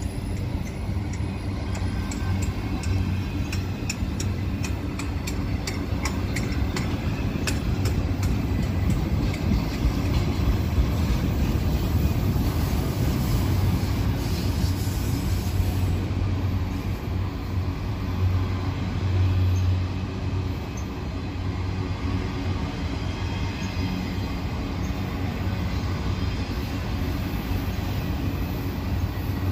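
Freight cars of a long Union Pacific manifest train rolling past in a steady low rumble, with a quick run of regular clicks over the first eight seconds or so.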